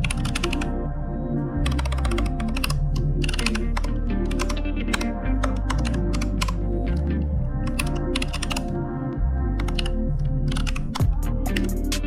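Quick bursts of typing on a computer keyboard, many clicks in a row with short pauses, over background music with a strong bass line.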